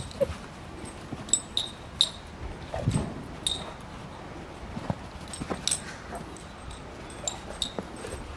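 A large dog whimpering and snuffling softly, among a scattering of short sharp clicks or crunches.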